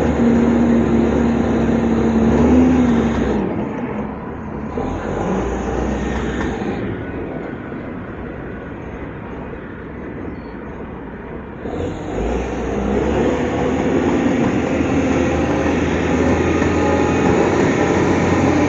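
Heavy earthmoving machine's diesel engine working, with a steady whine for the first three seconds or so. It drops to a lower level in the middle and picks up louder again about twelve seconds in.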